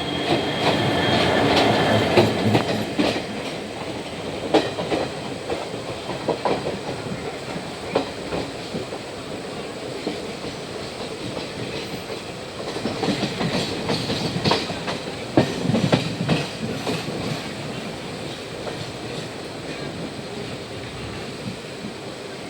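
Train running on its track, wheels clicking over the rail joints through a steady rumble. It swells near the start and again past the middle, then eases off.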